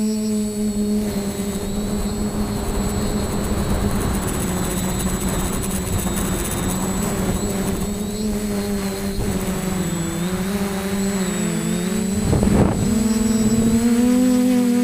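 TBS Discovery Pro quadcopter's electric motors and propellers buzzing in flight. The hum is steady but wavers in pitch as the throttle changes, with a rushing noise under it. About twelve seconds in comes a short louder surge, after which the pitch rises a little.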